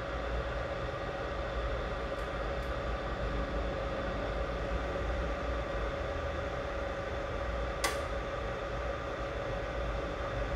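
BGA rework station's hot-air heaters and fans blowing steadily with a hum, while the GPU chip's solder balls reflow. A single sharp click about eight seconds in.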